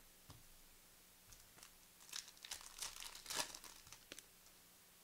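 Trading card pack wrapper being torn open and crinkled. A few soft clicks come first, then a burst of crinkling and tearing starts about two seconds in, peaks a little past the middle and stops about four seconds in.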